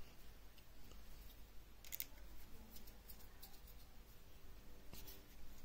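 Faint handling of small metal parts, an alligator clip, screw and copper wire being fitted by hand, with a few sharp clicks, the clearest about two seconds in and another near the end.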